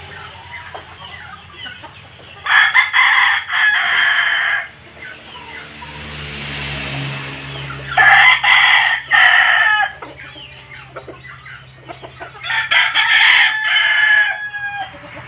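Rooster crowing three times, each crow about two seconds long, roughly five seconds apart.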